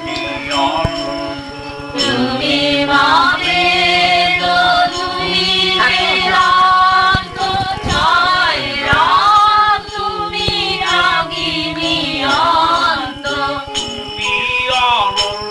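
Devotional kirtan music: sung lines that rise, fall and waver, held over a steady instrumental accompaniment, with no clear words.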